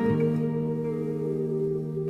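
Background music: a strummed acoustic guitar chord ringing on.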